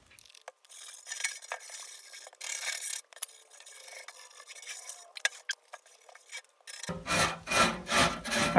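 Steel wool scrubbing the steel body of a Craftsman hip roof toolbox with cleaner, a scratchy rasp of repeated back-and-forth strokes that gets louder about seven seconds in.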